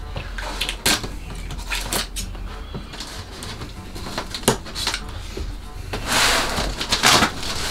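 Paper scissors cutting through the packing tape on a cardboard box, with a run of sharp blade clicks and snips, then a longer rustle of cardboard and tape near the end as the box flaps are pulled open.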